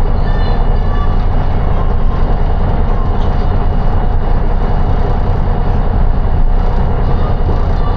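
City bus in motion, heard from inside: a steady, loud low rumble of engine and road noise, with a faint steady whine above it.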